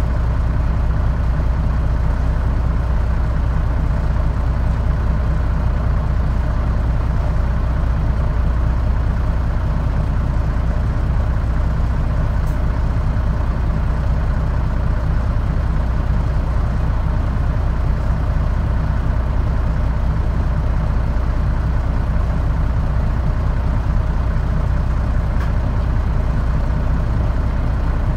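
Mitsubishi Fuso Aero Star city bus (KL-MP37JK) diesel engine idling steadily, with a strong low hum, heard from inside the cabin.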